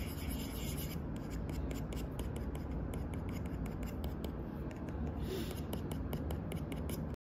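Stylus tapping and sliding on a tablet's glass screen, many light ticks over a steady low room hum, cutting off suddenly near the end.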